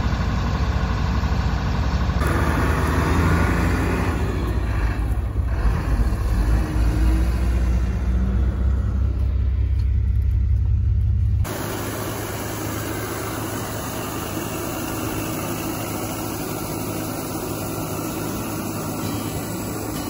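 Combine harvester engine running, heard from inside the cab with a heavy low rumble. About eleven seconds in it cuts abruptly to a quieter, steadier running sound of the combine heard from outside, unloading grain into a truck with its auger.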